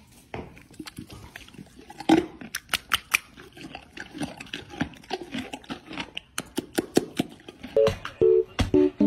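Horse chewing a carrot: a quick, irregular run of crisp crunches. Plucked guitar music comes in near the end.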